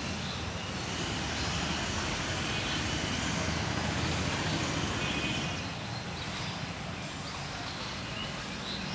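Road traffic noise: a motor vehicle going past, its rumble and hiss swelling and then easing off about five or six seconds in, with a few faint high chirps on top.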